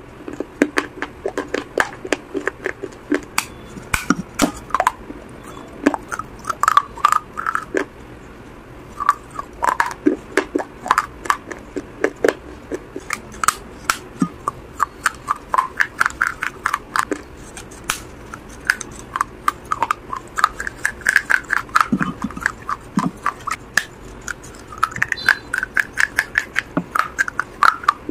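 Close-up crunching of a hard piece of baked clay being bitten and chewed, a fast, irregular stream of sharp crisp cracks that runs on throughout.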